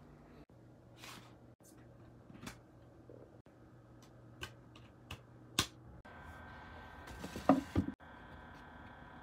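Plastic CD jewel cases handled by hand: scattered light clicks and taps, loudest as a quick cluster of clacks near the end, over a faint steady hum.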